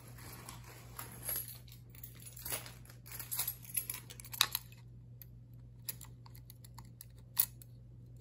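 Light handling noise: scattered small clicks, taps and rustles as a rifle barrel with a gas block is turned over in the hands. In the last few seconds come a handful of sharper metallic clicks as a keyring with keys is brought to the gas block.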